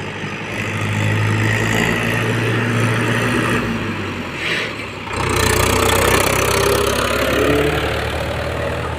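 Mahindra 415 DI tractor's four-cylinder diesel engine running steadily while pulling a fully loaded trolley. It grows louder about five seconds in as the tractor passes close by.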